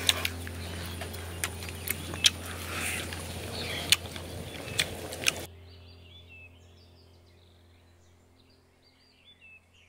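Close-up chewing and lip-smacking of a mouthful of fried pork rib, with sharp wet clicks, for about five and a half seconds. Then it stops abruptly, leaving faint bird chirps.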